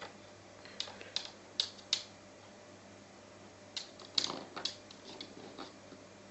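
Sharp clicks and taps on a laminate floor as a Maltese dog plays with a horse chestnut: four spaced clicks in the first two seconds, then a quicker run of them from about four seconds in to near six.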